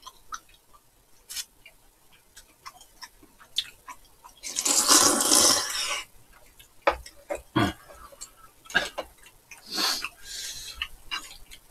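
Close-up mukbang eating sounds: wet chewing clicks throughout, with a loud slurp lasting over a second about halfway through and a shorter, softer one near the end, as the chewy glass noodles and braised chicken are eaten.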